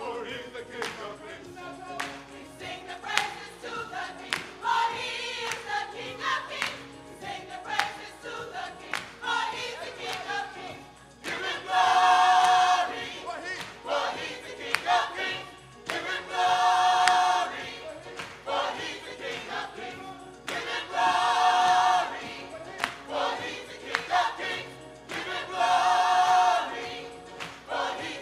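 Gospel choir singing, swelling into a loud held chord about every four to five seconds, with quieter singing and a steady beat between.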